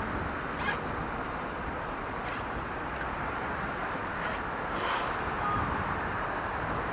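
City street traffic: a steady rumble and hiss of cars passing, with a few short sharp ticks and a slightly louder passing vehicle about five seconds in.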